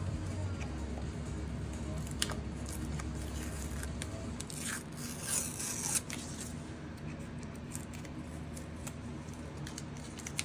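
Blue painter's tape being peeled off a wooden furniture molding: a ripping noise lasting about a second and a half, about halfway through, after a few light clicks of handling.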